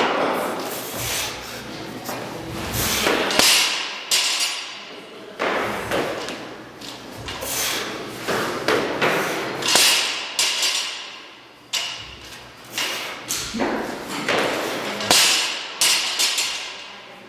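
Repeated thuds, every second or two, of a loaded barbell with rubber bumper plates being lifted and set back down on rubber gym flooring, mixed with other thumps from athletes training around it.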